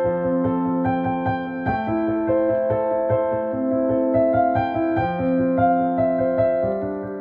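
Upright piano playing a slow worship-song accompaniment: held chords over sustained bass notes, changing every second or so.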